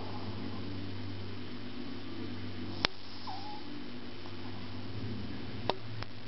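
Shih-tzu puppy snoring softly in its sleep over a steady low hum. Two sharp clicks stand out, one about three seconds in and one near the end, with a brief squeak just after the first.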